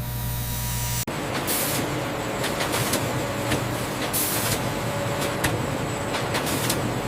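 Industrial processing machinery: a steady hum that cuts off suddenly about a second in, then a dense mechanical din with sharp clicks and short bursts of air hiss.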